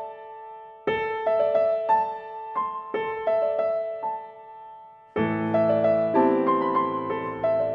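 Background piano music: a gentle melody of struck notes repeating in short phrases about every two seconds, with fuller low chords joining about five seconds in.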